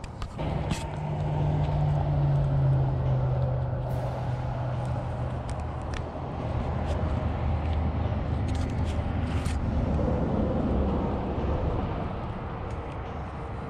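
An engine humming steadily, its pitch sinking slightly over the first few seconds and then holding lower, with a few faint clicks over it.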